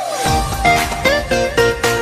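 Background music: a lively tune of quick, bright separate notes, about five a second.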